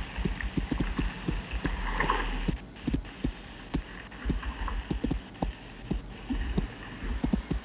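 Irregular low thumps and knocks over a low rumble, about one to three a second, from a vehicle jolting over a muddy dirt slope.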